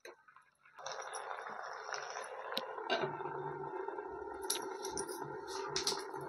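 Ropa bhaji greens cooking in a covered steel kadai on a gas stove: a steady hiss that starts about a second in and settles into a steadier hum, with a few light metallic clicks from the steel lid.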